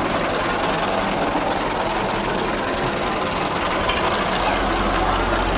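Massey Ferguson 240 tractor's three-cylinder diesel engine running steadily, with a deeper low drone joining about four seconds in.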